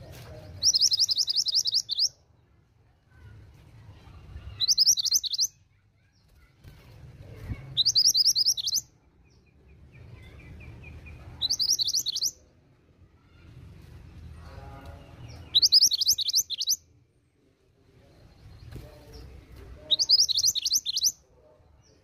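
Female mantenan gunung, a minivet, singing: six short, high trills of rapidly repeated notes, about one every four seconds.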